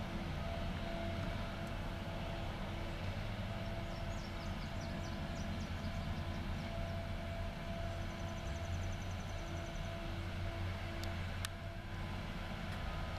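Cat 573C wheeled feller buncher running steadily at a distance: a constant engine drone with a few held tones. A faint high trill sounds twice in the background, and there is a single sharp click near the end.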